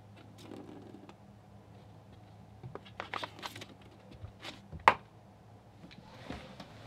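Plastic bag of dried berries crinkling as a cat noses at it: a few short crackles, then one sharp tap just before five seconds in, over a steady low hum.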